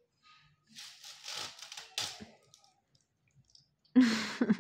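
Red metallic foil fringe curtain rustling and crinkling as a toddler grabs and pulls its strands, in two spells, the second starting suddenly and louder about four seconds in.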